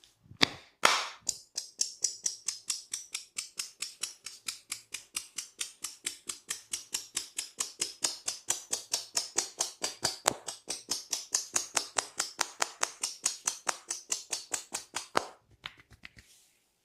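Hands tapping rapidly on a person's head during an Indian head massage: an even run of sharp slaps, about five a second, that stops near the end.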